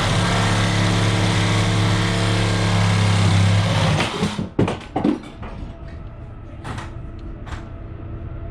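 Reciprocating saw (Sawzall) running under load, cutting, then stopping about four seconds in, followed by a few knocks and clanks.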